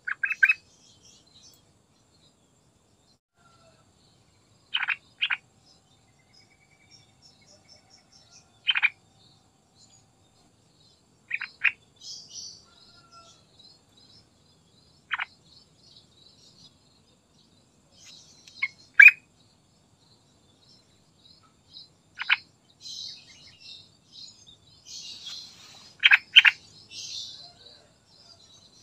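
Yellow-vented bulbul giving short, sharp call notes, singly or in quick pairs every few seconds, over faint high chirping; the loudest pair comes about two-thirds of the way in.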